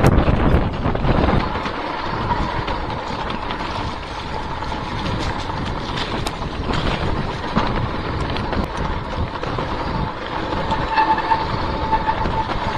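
Mountain bike riding fast down a rocky dirt trail: wind buffeting the microphone over tyre noise and the rattle of the bike, with sharp knocks from bumps, loudest in the first second. A thin whine comes and goes, plainest near the end.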